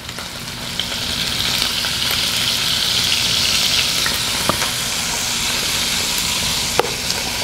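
Chicken thighs frying skin-down in hot ghee in a cast iron skillet: a steady sizzle that swells over the first couple of seconds and then holds, with a few faint clicks.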